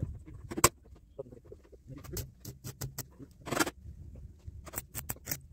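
Irregular sharp clinks and taps of metal on a steel sheet being worked by hand, with a longer, louder one about three and a half seconds in, over a steady low hum.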